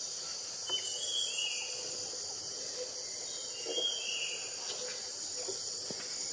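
Steady high-pitched insect chorus, with a few short high chirps repeating every second or two over it.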